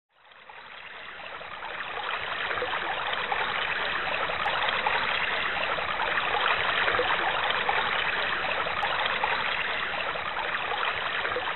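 Steady running water, fading in from silence over the first two seconds.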